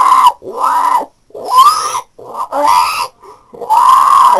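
A man's loud wordless cries, about five in quick succession, each under a second with short gaps between them and bending up and down in pitch.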